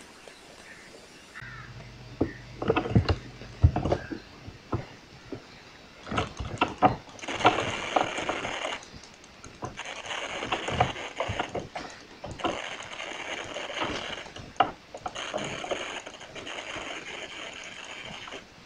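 Irregular clicks and knocks of a computer mouse and keyboard being worked, some sharp and loud, over a background hiss that comes and goes in stretches of a second or two.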